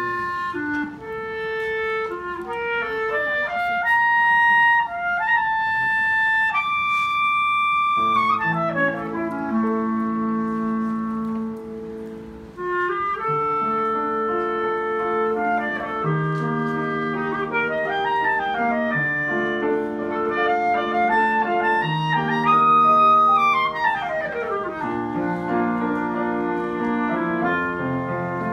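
Clarinet playing a lyrical classical melody with upright piano accompaniment. The clarinet carries the line almost alone at first, the piano comes in with fuller chords about eight seconds in, and a few seconds before the end the clarinet plays a quick falling run.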